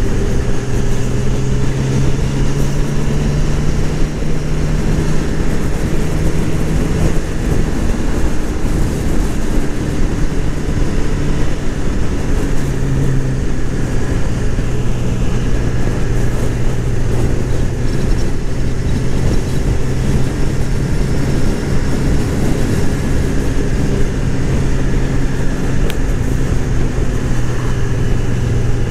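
Honda CB1000R's 998 cc inline-four engine running at a steady cruise, heard from the riding motorcycle, with its note changing pitch about seven seconds in and again about halfway through. Wind rush over the microphone throughout.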